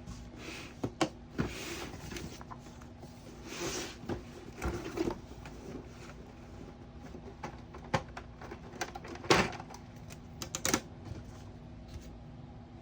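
Fingers tapping near a Snap Circuits sound-IC circuit, with short bursts of rapid clicks from its small speaker: the machine-gun sound effect that each tap sets off. The taps and bursts come irregularly, several seconds apart, with a cluster of quick clicks about ten seconds in.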